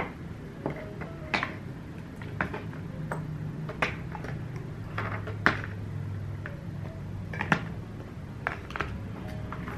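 Plastic bottles, jars and containers being picked up and set down on a desk: a string of irregular light knocks and clacks, over a steady low hum.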